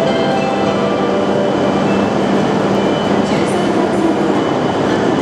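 E7/W7-series Hokuriku Shinkansen train running past the platform: a steady, loud rumble with a few steady whining tones from its running gear, and a brief high squeal about three seconds in.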